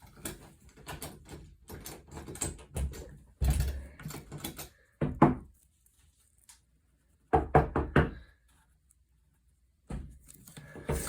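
Knocking on a door: a quick run of about four knocks about seven seconds in, after scattered lighter taps and handling sounds.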